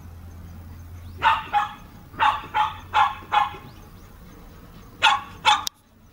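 A dog barking in short, sharp barks: two about a second in, a run of four over the next two seconds, and two more near the end.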